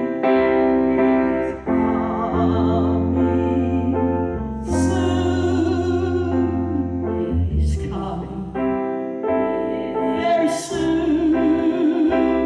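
A gospel song sung by a solo voice with piano accompaniment, its long held notes wavering with vibrato over a steady bass.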